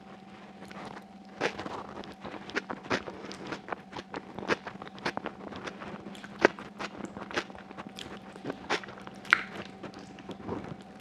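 Close-miked eating of braised sheep's trotters with chickpeas by hand: irregular wet smacking, biting and chewing clicks as the gelatinous trotter is gnawed and pulled apart, with a couple of sharper clicks about six and nine seconds in.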